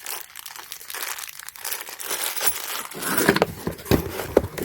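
Packaging crinkling while the seat-belt mounting bolts and washers are handled, with scattered sharp clicks that come more often in the second half.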